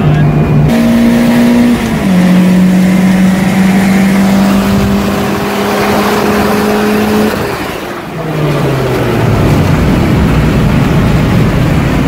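Car engine heard from inside the cabin at full throttle. It goes through two quick upshifts near the start, then makes a long pull in one gear with the note slowly rising. About eight seconds in it lifts off, and the engine note falls as the car slows.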